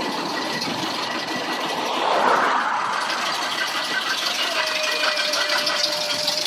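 1924 Tasker B2 steam tractor running along the road, its engine making a fast, even mechanical clatter that grows stronger as it comes close near the end. A swell of passing road traffic about two seconds in.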